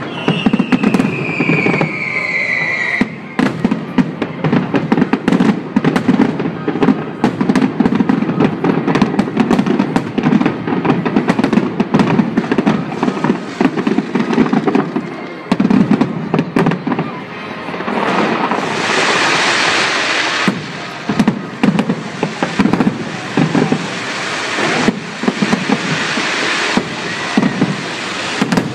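Aerial firework shells bursting in rapid succession, a dense barrage of bangs and crackles. A whistle falls in pitch over the first three seconds, and about two-thirds through a dense hissing rush lasts about two seconds.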